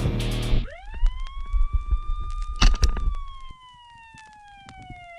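A siren winds up to a steady wail, holds, then slowly winds down, with scattered sharp clicks and one louder crack partway through. Background music cuts off under a second in.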